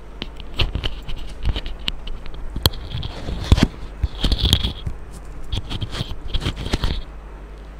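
Handling noise on a clip-on microphone: irregular rustling, scratching and taps, busiest from about three to seven seconds in and dying down near the end.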